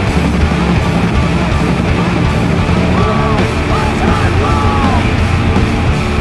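Punk band recording with distorted guitar, bass and drums playing loud and dense, and yelled vocals.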